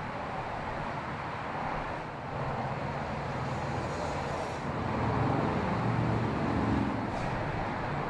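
A motor vehicle driving, a steady engine hum under road and wind noise, growing a little louder about five seconds in.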